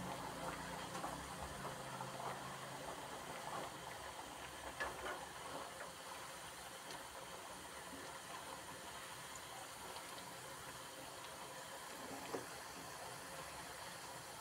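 Potato fries deep-frying in hot oil in a wok: a steady sizzle with fine crackling, and a couple of sharp clicks, one about five seconds in and one near the end.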